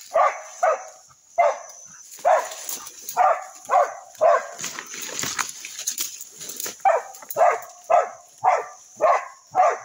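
Dog barking repeatedly, about two barks a second with a short break in the middle, baying at a wild animal it has found in the undergrowth.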